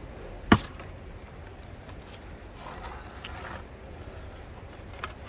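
A single sharp knock about half a second in, over a steady low rumble.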